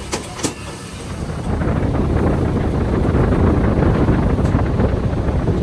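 Two sharp knocks, then a loud, rough rumble of wind buffeting the microphone that builds about a second and a half in.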